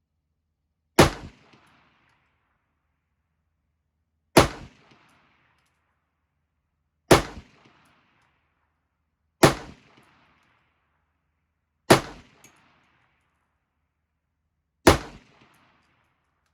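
Six single rifle shots fired a few seconds apart, each a sharp crack followed by a short echo dying away. They are aimed at a 200-yard steel gong; no ring of steel follows, and the shooter takes the rounds to be hitting dirt.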